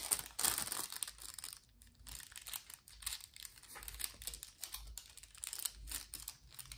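Thin nail foil sheet crinkling and crackling as it is handled and pressed onto a press-on nail, busiest in the first second or so, then faint scattered crackles.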